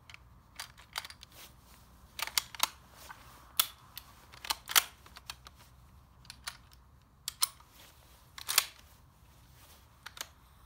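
M1903 Springfield bolt-action rifle being loaded and cycled: a run of sharp metallic clicks and clacks from the bolt and trigger, with no shot fired. These are clicks with no bang: the rifle is failing to fire because its striker is not staying cocked when the bolt closes on a live round.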